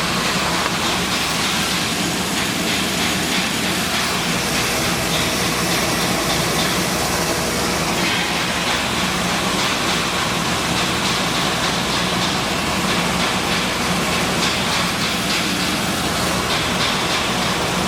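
Maize milling machine running: a steady mechanical rush of grain and machinery with a low hum underneath, unchanging throughout.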